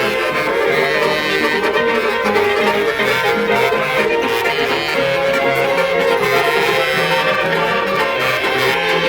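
Music: a melody with chords over a bass line that steps from note to note, playing continuously at a steady loudness.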